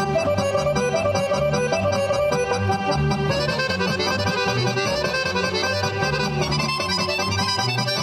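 Lively accordion-led folk dance music with a pulsing bass line keeping a steady beat. The melody moves into a higher register about three seconds in.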